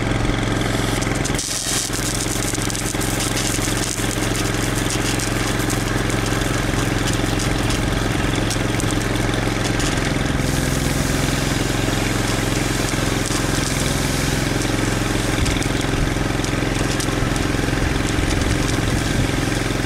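Brush fire truck's engine running steadily under load, driving the fire pump, with the dense hiss of water jetting from the bumper-mounted monitor and ground-sweep nozzles.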